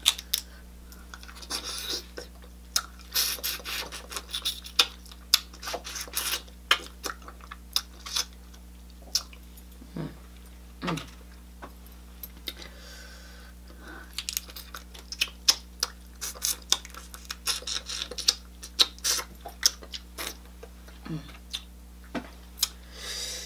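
Close-up eating sounds of seafood being peeled and eaten by hand: irregular wet smacking, chewing and sucking, with small clicks and crackles from shell and fingers.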